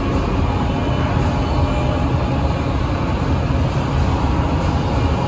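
Steady running noise of woodworking machinery: a loud, even low rumble with a few faint steady high tones above it.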